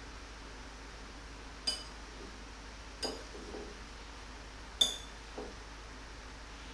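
Tableware clinking: three sharp, ringing clinks about a second and a half apart, the last two each followed by a softer knock.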